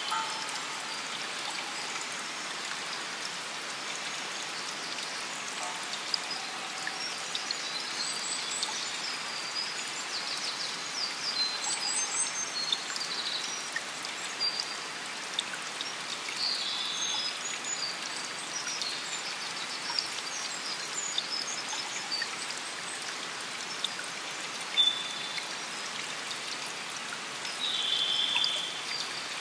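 Steady rush of running water, with scattered short high chirps through it and a brief cluster of them near the end.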